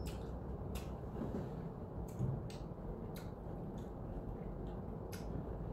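A plastic fork clicking and tapping against a plastic salad container, about seven light, scattered clicks, over a low steady hum.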